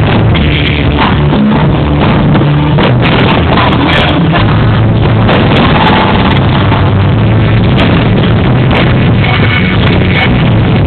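Loud music playing steadily, heavily compressed, with no clear separate bangs.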